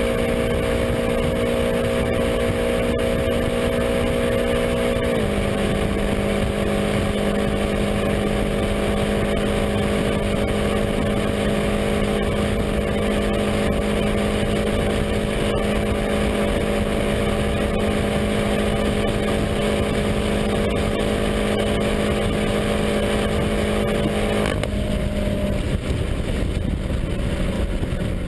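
2014 BMW M5 F10's twin-turbo V8 pulling hard at full throttle near 300 km/h, heard from inside the cabin; its pitch steps down once about five seconds in as it upshifts from fifth to sixth gear. About 24 seconds in the throttle is lifted and the engine note drops away, leaving a steady rush of wind and road noise as the car slows.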